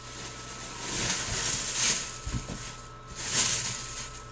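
Rustling and handling noises as items are moved about on a table, in two swells with a couple of soft knocks between them.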